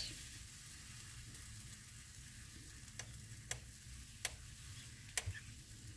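Chocolate crêpe batter sizzling faintly on the hot plate of a Beper electric crêpe maker, a steady soft hiss. In the second half come four sharp clicks as the wooden spatula knocks against the plate.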